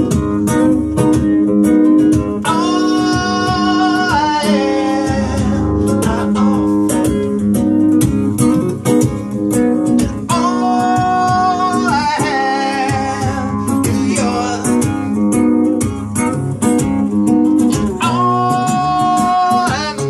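A man singing to a strummed acoustic guitar, with a long held note in the vocal three times: about 3 seconds in, about 11 seconds in, and near the end.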